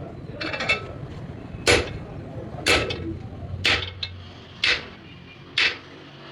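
Steel hammer striking metal about once a second, each blow ringing briefly, as wheel studs are hammered into a truck's rear axle hub. A steady low hum runs underneath.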